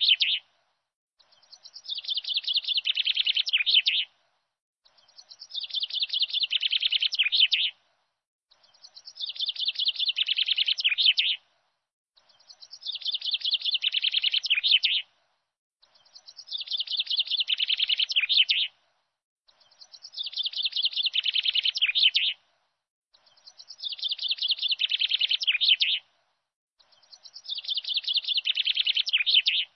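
A songbird singing: a phrase of rapid high chirping notes that grows louder for nearly three seconds and stops sharply. The same phrase repeats at even spacing, about every three and a half to four seconds, with short silent gaps, like a looped recording.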